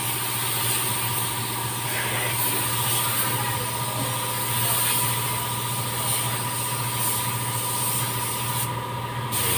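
Gravity-feed air spray gun hissing steadily as it sprays paint onto a car body, over a steady low hum. The hiss cuts out briefly near the end.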